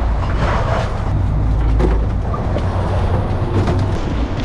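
Lobster boat's engine running steadily under way, with water rushing past the hull and a few knocks from wooden lobster traps being handled on deck.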